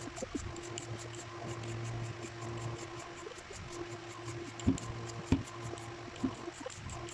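Mango being shredded with a julienne peeler: soft, wet scraping strokes as the blade is drawn down the flesh. Two sharp knocks come a little past the middle, with a smaller one after them.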